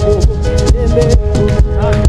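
Worship music with a steady beat: drums and a shaker-like rattle hitting several times a second under sustained pitched tones.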